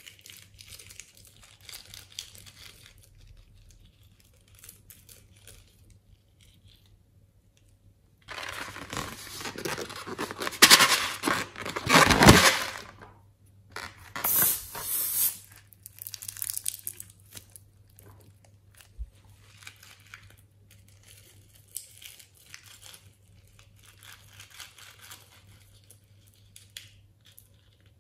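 Scissors cutting through latex balloons, with the rubber crinkling and tearing as it is handled. The sound is loudest in a noisy stretch of several seconds past the middle, with a second shorter burst just after, and soft rustling before and after.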